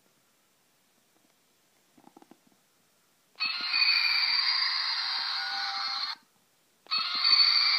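1998 KFC Godzilla hand puppet's built-in roar sound played through its small speaker, twice: one roar of nearly three seconds, a short pause, then a second roar that keeps going. The roars are thin, with no bass, and are preceded by a few faint clicks.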